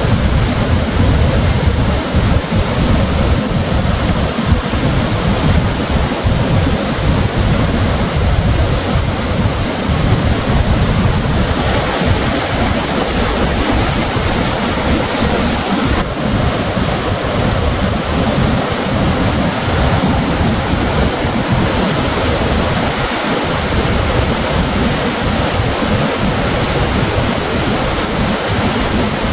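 River waterfall in full flow, its waters swollen by heavy rains: a loud, steady rush of falling water with a heavy low rumble.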